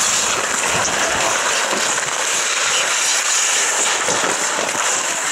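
Ice hockey play on an outdoor rink: skate blades scraping and hissing on the ice in a steady wash, with a few dull knocks.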